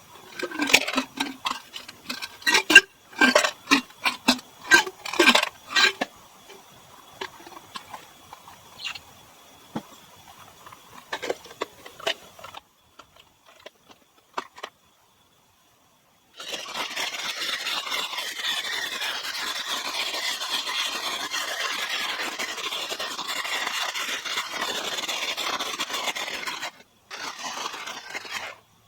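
Metal and glass cookware clinking and knocking in a quick cluster, then a few small clicks. After a cut, a steady hiss runs for about ten seconds, stops briefly and resumes near the end.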